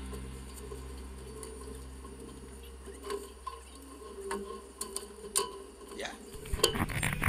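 Scattered knocks and clatter of albacore tuna and ice being handled and dropped into a plastic fish tote, over a low steady hum that stops about six seconds in. Near the end the sound turns louder and busier.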